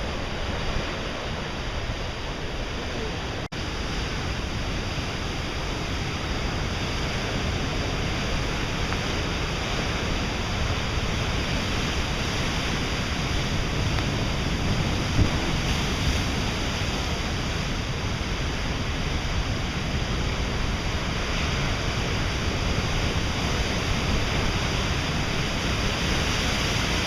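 Steady rushing of a waterfall, an even wash of noise with a brief dropout about three and a half seconds in.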